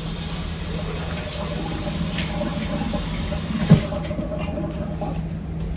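Kitchen tap running water into a sink, shut off about four seconds in, with a single knock just before it stops.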